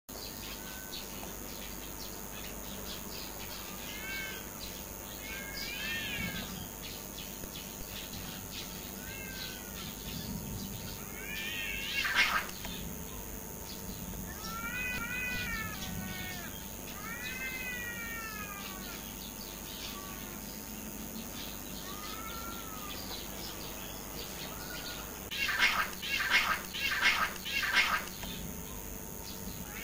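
Two domestic cats yowling at each other in a fight: long, wavering howls that rise and fall, a loud scream about twelve seconds in, then a quick run of four or five loud screeches near the end as they grapple and roll.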